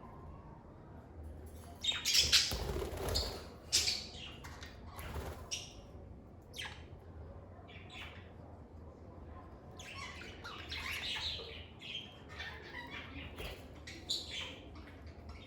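Lovebirds chirping and squawking in short, sharp, irregular calls, with a louder burst of calls about two to four seconds in and another around ten seconds in.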